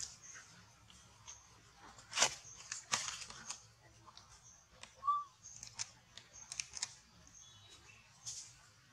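Scattered light rustles and crackles, the loudest a little over two and three seconds in, with one brief high squeak about five seconds in.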